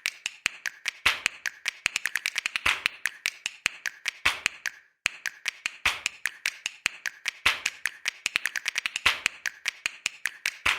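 A rhythmic beat of sharp tapping clicks, about five a second, with a heavier hit roughly every second and a half. It breaks off briefly about five seconds in, then resumes and stops at the end.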